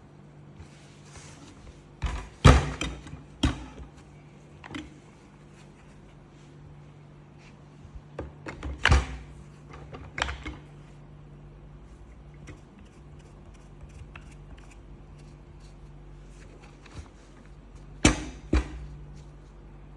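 Clicks and knocks of a cordless grinder being handled, coming in three short clusters over a faint steady hum.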